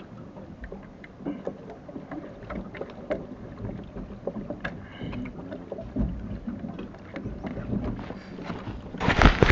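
Rowing eight sitting at the start, heard through a voice recorder inside the boat: scattered small clicks and knocks from the oars and boat fittings over a low rush of wind on the microphone. A louder burst of noise comes near the end.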